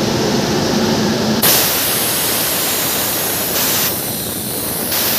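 Steady loud rushing noise from a WAG9 electric locomotive's running equipment, with a high hiss of air cutting in sharply about a second and a half in and carrying on.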